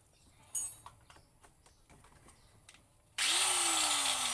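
Hitachi angle grinder's electric motor switched on about three seconds in, after a few faint clicks, starting abruptly and running at speed with a high whine and a tone that slowly slides down, then jumps back up. Its armature repaired and new carbon brushes fitted, it runs smoothly, no longer growling.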